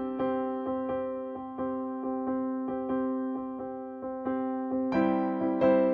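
Background music: a gentle keyboard tune of single notes struck one after another, getting fuller and louder about five seconds in.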